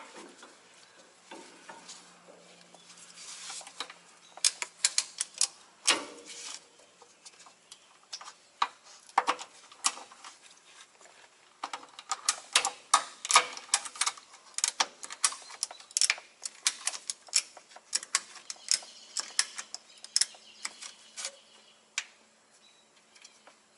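Metal hand tools clicking and tapping against metal in irregular clusters of sharp clicks, as a semi-truck transmission is worked into alignment for its bolts.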